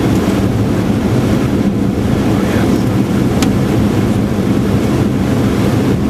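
Steady, loud rumble of airflow and engines heard inside an airliner's cockpit on final approach, with a single sharp click about three and a half seconds in.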